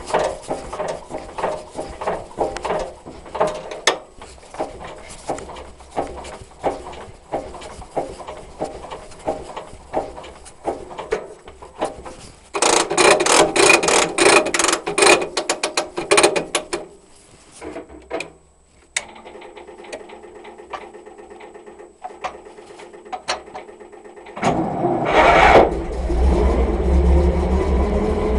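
Clicks, knocks and a burst of rapid clatter as controls are worked inside a Saladin armoured car, then a steady electric hum. Near the end the Rolls-Royce B80 straight-eight petrol engine starts and runs, its pitch rising as it revs.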